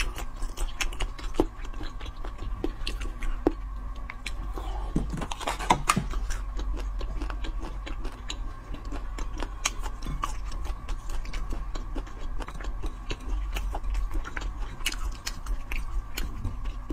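Close-miked chewing of chewy marinated meat-and-tendon pieces: many small wet clicks and smacks from the mouth, a few louder around the middle. A faint steady high hum runs underneath.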